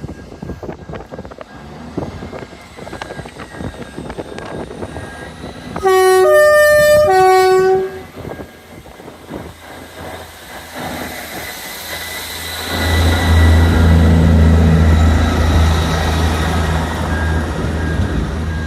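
Class 158 Sprinter diesel multiple unit sounding its horn about six seconds in: three tones in a row, low, high, low, loud and lasting about two seconds in all. Before it, wheels clatter over rail joints; from about 13 seconds in a loud, steady low diesel engine drone comes in and holds.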